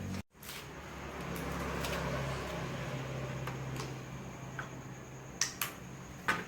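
Small medical equipment being handled and put away: scattered light clicks and taps, with three sharper clicks near the end, over a steady low hum. The sound drops out briefly just after the start.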